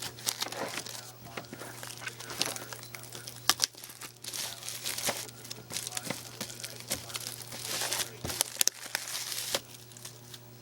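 Plastic packaging of a DVD box set crinkling and crackling as it is handled and opened, with irregular sharp clicks from the plastic, the strongest about three and a half seconds in and again near eight seconds. A steady low hum lies underneath.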